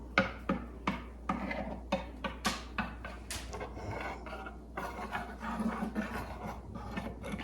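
Light, irregular wooden clicks, knocks and rubbing, a few a second, as the parts of a homemade wooden puzzle box are handled and worked with a small magnet.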